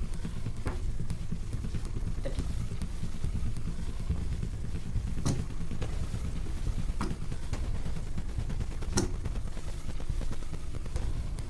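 A steady low rumble with five sharp clicks scattered across it, poker chips being picked up and set down on a table.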